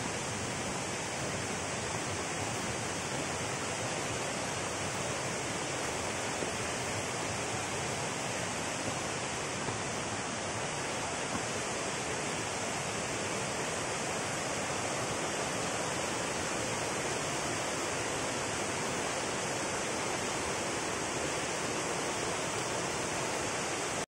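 Steady rush of water from a waterfall and its stream, an even hiss with no breaks.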